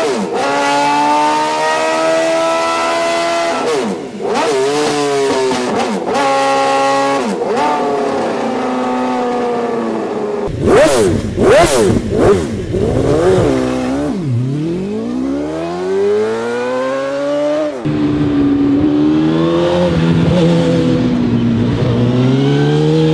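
PGM V8 motorcycle's 2-litre V8, built from two Yamaha R1 cylinder banks, revving. Short throttle blips peak in loud, sharp stabs about halfway through. After that it climbs in long rising pulls, broken by a sudden drop in pitch.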